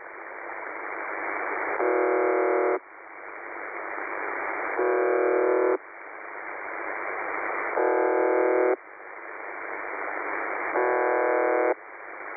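UVB-76 "The Buzzer" shortwave station received over a web SDR: four buzzes, each about a second long, one every three seconds. Between them is receiver static that grows louder until the next buzz.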